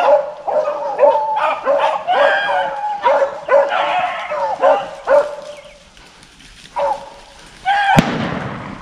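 A pack of rabbit hounds baying one call after another as they run a rabbit's track, thinning out after about six seconds. Near the end a single gunshot cracks out, with a short echo trailing after it.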